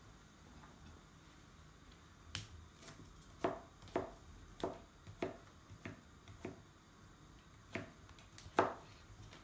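Kitchen knife cutting broccoli florets on a plastic cutting board: a series of about ten sharp clicks, roughly one every half second from about two seconds in, the loudest near the end.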